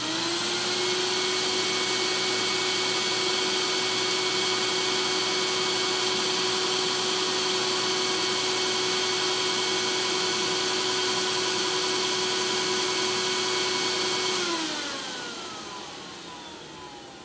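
Air-track blower switched on and spinning up, its pitch rising, then running steadily with a whine over a rush of air. About fourteen seconds in it is switched off and winds down, the whine falling in pitch as it fades.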